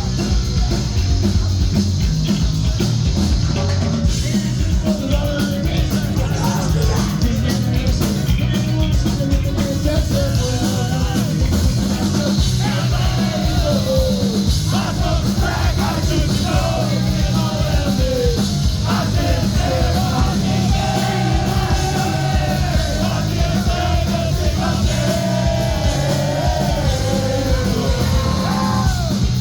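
Live punk rock band playing loud: drums, bass and distorted guitars, with a vocalist singing and yelling over them from about six seconds in.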